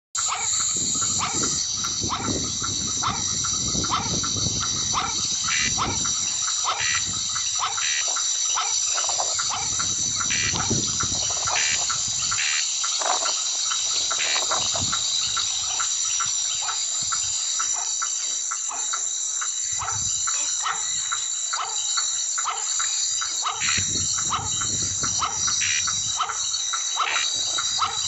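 Night chorus of frogs and insects: frogs croaking in short repeated calls about twice a second over a steady high-pitched insect trill.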